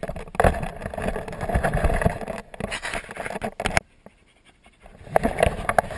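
Rustling and scraping handling noise close on the microphone, full of small knocks, as the camera is carried and moved about. It stops abruptly for about a second and starts again near the end.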